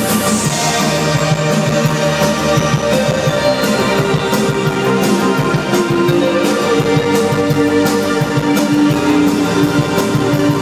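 Live band playing on stage, heard from the audience: electric guitar, keyboard and drum kit over a steady beat.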